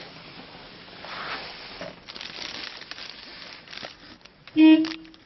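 A van's horn sounds one short, loud blast on a steady pitch near the end, after a few seconds of low background noise.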